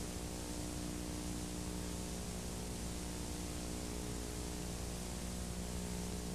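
Steady hiss with a low electrical hum underneath, unchanging throughout: background noise with no distinct event.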